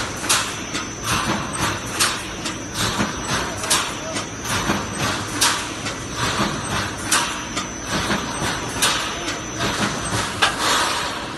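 Automatic wire mesh welding machine making 358 anti-climb fence mesh: a loud clack about every 1.7 seconds with each welding cycle, smaller clicks and knocks between, and a faint steady high whine.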